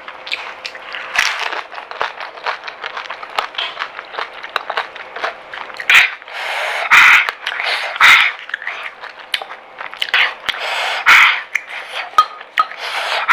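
A person eating pani puri close to the microphone: crisp puri shells crunching and wet chewing. Several louder noisy bursts come about six, seven and eight seconds in, and again at about eleven seconds.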